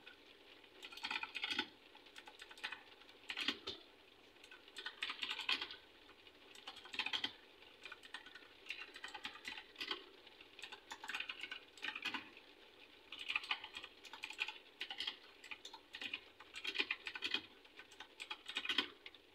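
Typing on a Ziyou Lang T60 mini mechanical keyboard with blue switches: fast runs of keystrokes in spurts, broken by short pauses.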